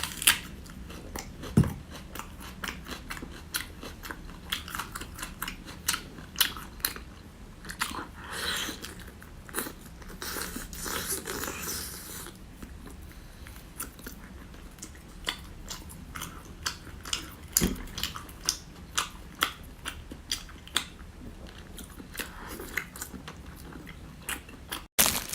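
Close-miked eating: biting and chewing with many sharp, irregular crunches, as of raw green onion eaten along with braised pork belly.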